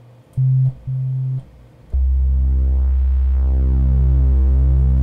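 Kurzweil PC3 synthesizer playing a pulse-width-modulation pad patch: two short test notes, then a low held note from about two seconds in, its overtones slowly sweeping as the pulse width moves.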